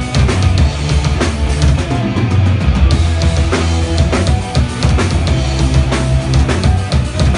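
Punk rock band playing live and loud: electric guitars, bass and a drum kit with regular kick and snare hits.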